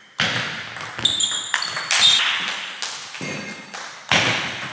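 Table tennis rally: the ball clicking off the bats and the table top in an irregular run of quick hits, echoing in a sports hall, with a few short high squeaks among them.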